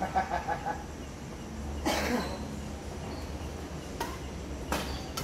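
Badminton rally: a racket strikes the shuttlecock with a sharp click about four seconds in, and a second hit follows less than a second later. Earlier, a person's voice gives a short rapid burst and then a cough-like sound about two seconds in.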